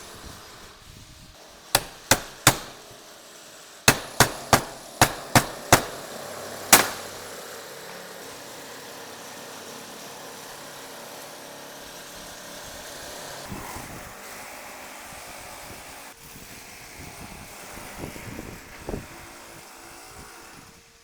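Hammer blows, about ten sharp strikes: three quick ones, then a run of six, then a single louder one, followed by steady background noise.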